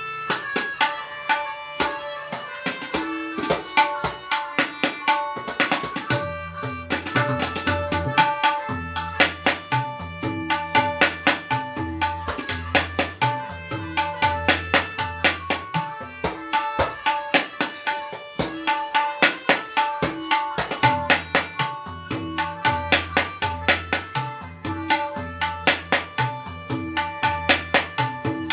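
Tabla solo in teentaal: fast, dense strokes on the dayan, with deep resonant bass strokes from the bayan joining about six seconds in. Under the drumming runs a steady, repeating melodic accompaniment (lehra).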